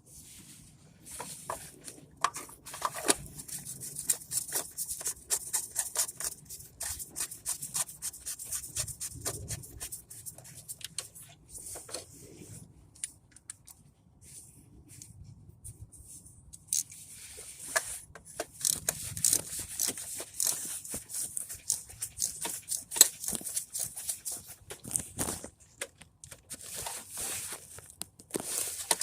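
Rapid, irregular clicking and light tapping of small hard objects being handled, in two long spells with a quieter pause near the middle.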